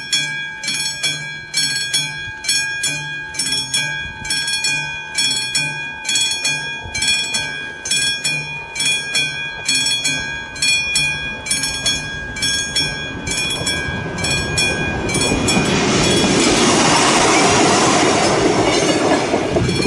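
Classic level-crossing warning bell striking about twice a second. From about 15 seconds in, a ČD Regionova diesel railcar passes over the crossing, with a loud rush of wheel and rail noise that drowns out the bell.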